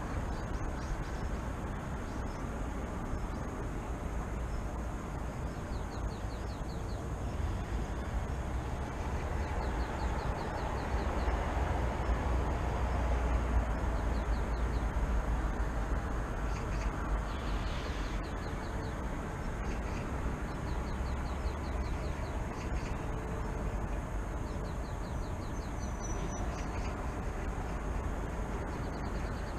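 Steady rumble of distant city traffic, swelling for several seconds around the middle, with a small bird giving short, high, rapid trills several times over it.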